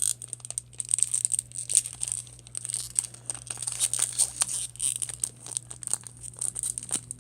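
Foil wrapper of a Pokémon trading card booster pack crinkling and tearing as it is ripped open by hand, with many irregular crackles.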